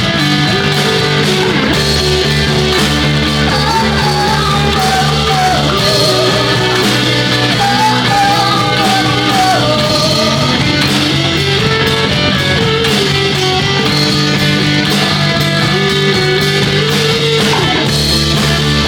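Live rock band playing: electric guitars, bass and drums, with held, bending melody lines on top. The deepest bass thins out about six seconds in and comes back near the end.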